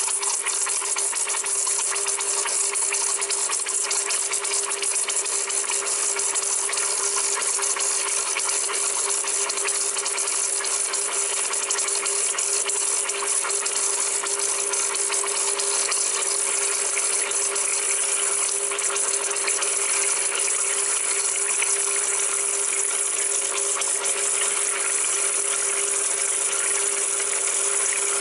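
Vibratory pump of a Bezzera Unica espresso machine running steadily with a buzzing rattle. It is pumping water at brewing pressure through the group fitted with a flow control device during an espresso shot.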